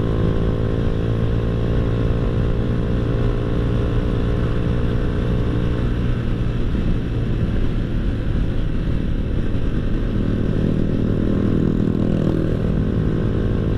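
Honda Astrea Grand's single-cylinder four-stroke engine under throttle while riding, its exhaust note a deep, mellow bass through a gutted Honda Revo Absolute muffler. The engine note holds fairly steady, wavering a little around the middle.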